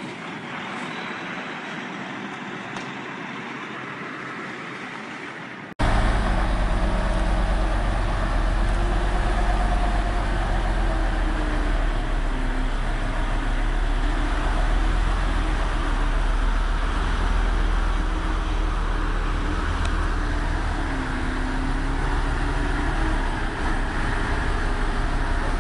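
Dubbed heavy-vehicle engine sound effect. About six seconds in, a quieter noisy layer cuts off abruptly and a much louder, steady deep engine rumble takes over, with a few wavering tones in it.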